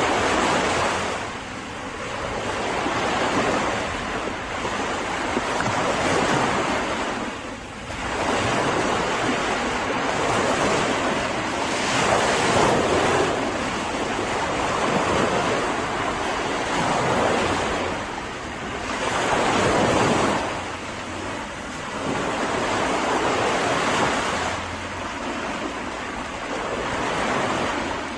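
Mediterranean sea waves washing onto a beach, the surf swelling and falling back every few seconds.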